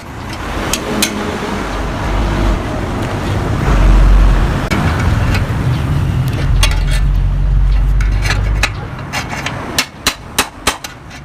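Hammer blows on a sheet-metal motorcycle exhaust (a Yamaha RX-King muffler being opened up) over a steady low rumble. Near the end the rumble drops away and about five sharp blows come in quick succession.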